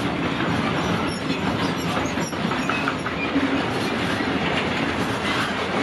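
Freight train of covered sliding-wall wagons rolling past: steady rumble of wheels on the track with clickety-clack over rail joints and a few short, faint wheel squeals.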